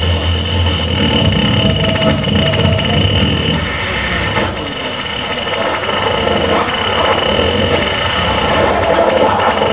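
Harsh noise music played live on electronics: a loud, dense wall of distorted noise with steady high whistling tones over a low rumble. It thins slightly about four seconds in, then builds again.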